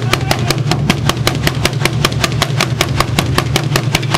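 Ensemble of tall wooden Burundian drums beaten with sticks in a fast, even rhythm of about seven loud strikes a second.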